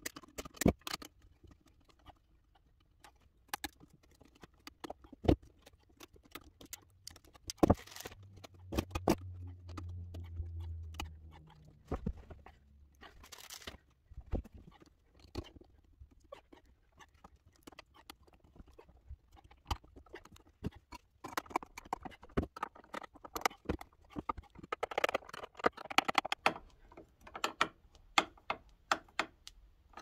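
Hands working copper wires and pliers in a steel electrical junction box: scattered sharp clicks and taps of metal on metal, with denser scraping and rustling from about twenty seconds in as wire nuts are twisted on and the cover plate is handled. A low hum sounds for a few seconds about eight seconds in.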